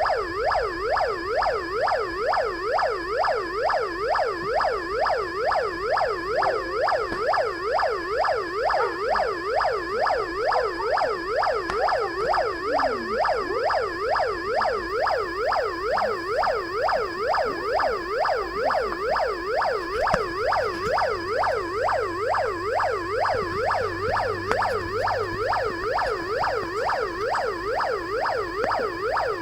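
Arduino-generated electronic police-siren tone: a fast yelp sweeping up and down about twice a second, starting abruptly. A steady high whine runs underneath.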